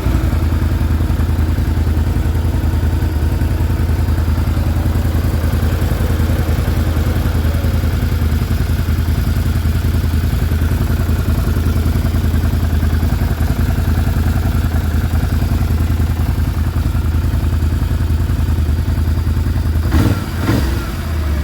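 Can-Am Renegade 650's Rotax V-twin engine idling steadily with a clattering piston slap, typical of this engine when cold, before warm-up closes the piston-to-cylinder clearance. Briefly louder near the end.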